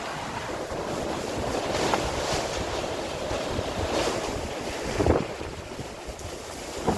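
Strong gusting wind buffeting the microphone, rising and falling, with a louder burst about five seconds in.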